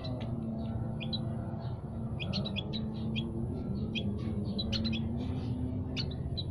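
Several small songbirds chirping and twittering, short calls overlapping in a busy, irregular stream, over a low steady hum.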